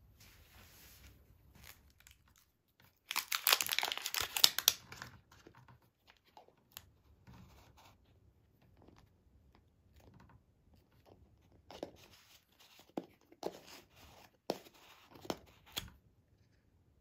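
A plastic seal strip tearing off a capsule toy in a harsh rasp lasting about two seconds, then scattered light clicks and knocks of the hard plastic capsule being handled and its lid pulled open.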